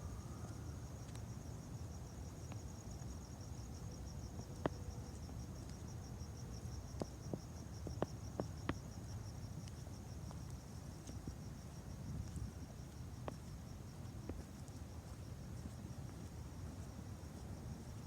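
Crickets trilling steadily at night in a fast, even, high-pitched pulse, over a low outdoor rumble. A few sharp clicks come in a cluster around the middle.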